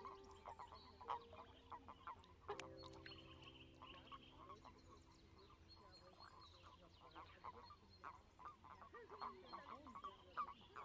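Faint chorus of common toads calling at their breeding spot in the water: many short croaks overlapping irregularly, from males gathered and clasping females for spawning.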